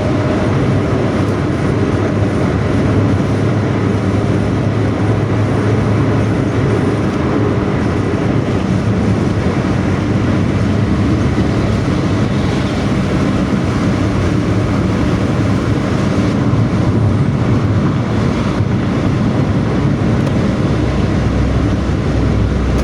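Intercity bus's diesel engine running steadily under way, its "ngorok" exhaust giving a deep, snoring growl.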